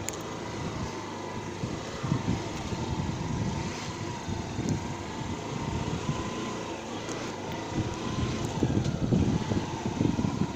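A motor vehicle running steadily with a thin, slightly wavering whine, while wind rumbles in gusts on the microphone.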